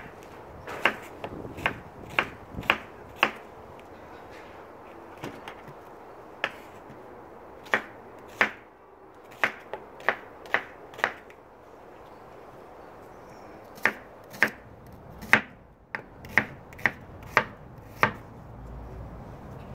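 Kitchen knife slicing onions on a wooden cutting board: sharp knocks of the blade against the board, about two a second, in runs broken by short pauses.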